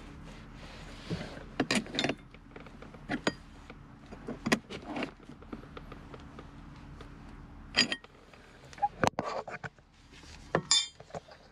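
Irregular clicks, knocks and light metallic clinks from hands and tools working at a Jaguar XK8's gear selector linkage and cable adjuster nuts, with a short metallic jingle near the end.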